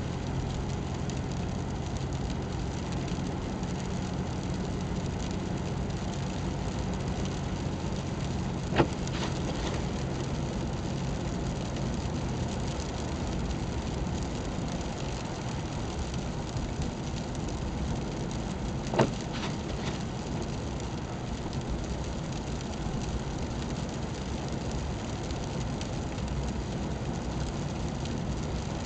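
Steady engine and tyre noise heard inside a car's cabin while driving on a snowy, slushy road, with two sharp ticks about nine and nineteen seconds in.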